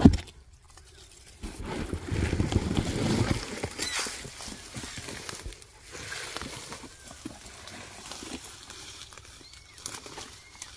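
Dry pine needles and undergrowth rustling as a cardboard box is handled and carried through brush, loudest from about one and a half to three and a half seconds in. A sharp thump opens it, and newborn kittens give a few faint high mews in the second half.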